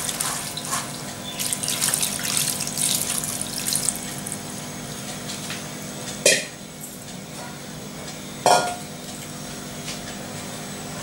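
Wet grated potato being rinsed by hand in a steel colander: water splashing and swishing as the shreds are worked to wash out the starch, for the first four seconds or so. Then two short knocks, about two seconds apart, over a faint steady hum.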